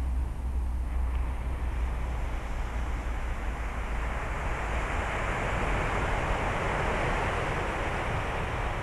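Wind buffeting the microphone with a low rumble, over a steady rushing noise. The rush swells about five seconds in and eases toward the end.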